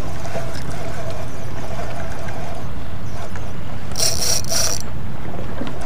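Steady wind and water rumble on a kayak with a faint steady whine. About four seconds in comes a brief high-pitched burst in two parts.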